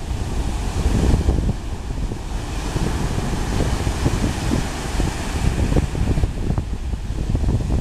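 Ocean surf breaking and washing up a sandy beach in a steady hiss that swells and eases, under a rumble of wind buffeting the microphone.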